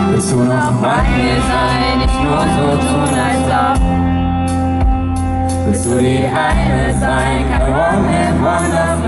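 Live band music from an unplugged set, led by an acoustic guitar with drums and other instruments, with a voice singing over it.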